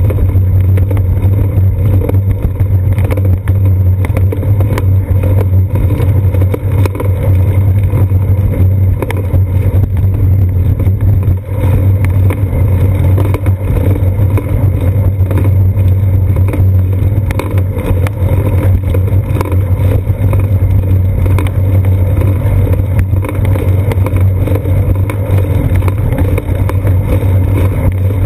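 Steady loud low rumble of wind and riding vibration on a seat-post-mounted GoPro Hero 2 while a bicycle rolls along a concrete sidewalk, with faint light knocks scattered through it.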